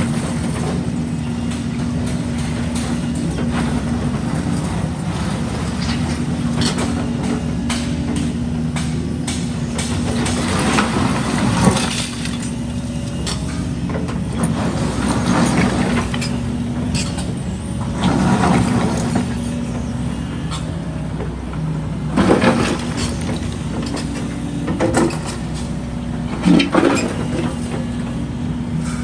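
Heavy diesel construction machinery running steadily, with about half a dozen short, harsh bursts of noise over it in the second half.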